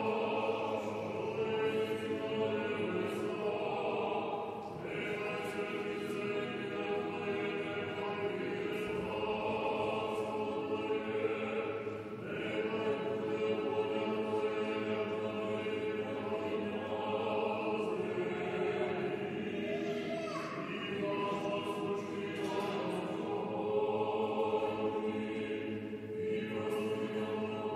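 Background music: a choir singing slow, sustained chant.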